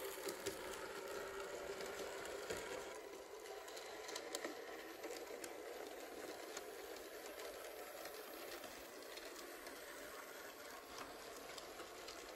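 009 narrow-gauge model trains running on the layout: a steady whirr of small motors and wheels with scattered clicks over rail joints and points. It is louder in the first few seconds, as a train passes close, then settles quieter.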